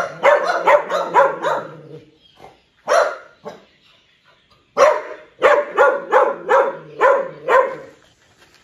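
Tan Chinese native dogs (tugou) barking in quick repeated runs, a short pause with a single bark between two runs; the dogs are wary of strangers and bark out of fear.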